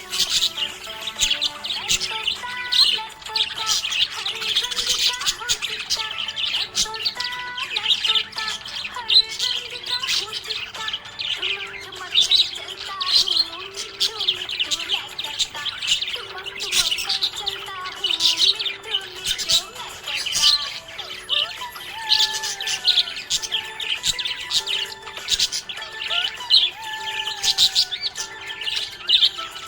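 Budgies chirping and chattering in a rapid, unbroken stream of overlapping high calls, over background music with held notes.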